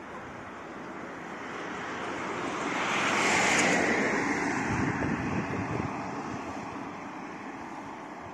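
A passing vehicle: its noise swells to a peak about three and a half seconds in, drops in pitch as it goes by, then slowly fades.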